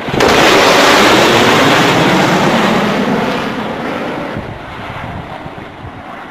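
F-14 Tomcat fighter jet making a high-speed fly-by: a loud rushing jet roar that comes in suddenly just after the start and fades away steadily over the following seconds.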